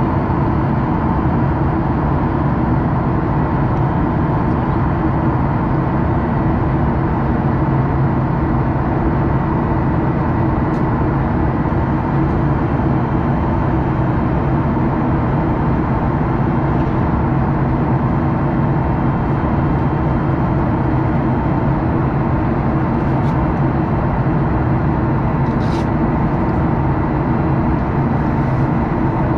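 Steady jet engine and airflow noise inside an airliner cabin in flight, with a faint steady high tone running through it.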